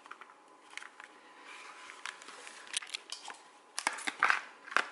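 Cooked elbow macaroni tipped from a bowl into a glass baking dish: soft sounds at first, then a few sharp clicks and knocks in the last two seconds.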